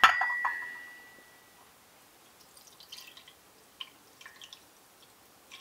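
A sharp clink of glass or china kitchenware, ringing on one clear note that fades over about a second and a half, followed by a few faint light clicks and taps.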